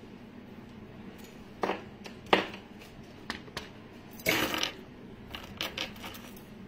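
Clinks and rattles of a gold-toned metal pendant with dangling bead and pearl hangings being handled and turned over, in several short bursts, the longest about four seconds in.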